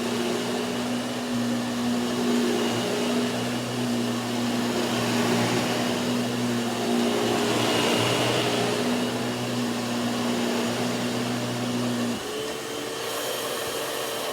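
Hoover WindTunnel 2 upright vacuum cleaner running with a steady hum. About twelve seconds in it is switched off and its motor begins to wind down, the pitch sliding lower.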